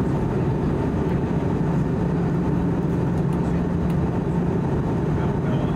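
Steady cabin noise inside an Airbus A320-214 airliner in descent: an even rush of airflow and engine noise with a constant low hum.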